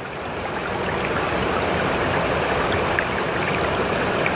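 Steady rush of water with faint scattered droplet-like ticks, swelling up from silence over the first second or so.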